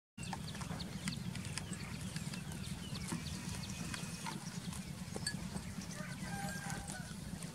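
Goat grazing close up, tearing and chewing grass: a run of short crisp clicks and rips over a steady low background noise. A brief animal call comes in near the end.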